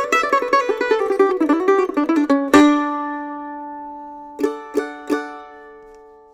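Gold Tone GM-6+ six-string mando-guitar picked in a fast run of single notes, which ends about two and a half seconds in on a loud chord that rings out. Near the end come three quick chord strums that ring and fade away.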